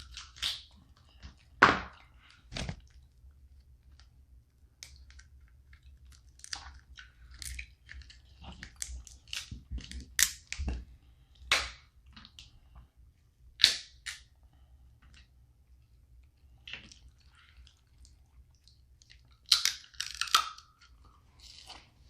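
Snow crab leg shells being snapped and cracked open: a string of sharp cracks at irregular intervals, the loudest about two seconds in and near the end, with eating sounds between.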